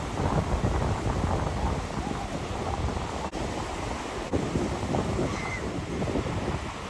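Surf washing on a beach, with wind buffeting the microphone.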